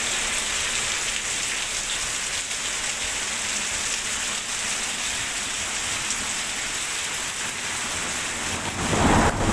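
Heavy rain falling steadily, an even hiss. A brief, louder low rumble comes near the end.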